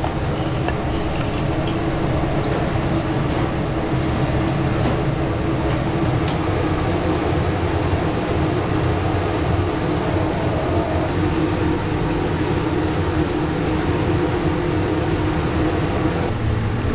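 Steady low roar of commercial kitchen equipment, with a few faint clinks of metal utensils in the first few seconds.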